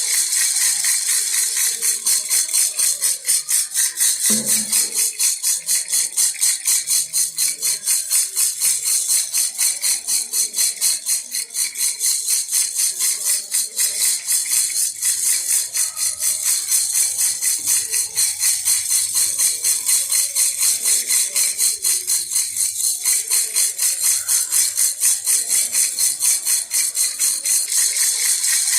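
Baby rattle shaken over and over in a steady rhythm, about three to four shakes a second, its beads making a bright rattling.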